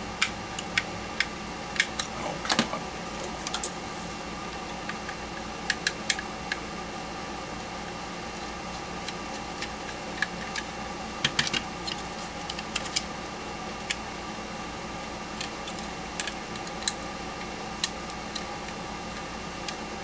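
Small screwdriver working the screws out of a plastic power-tool battery pack housing and handling the case: scattered light clicks and taps of metal on plastic, over a steady background hum.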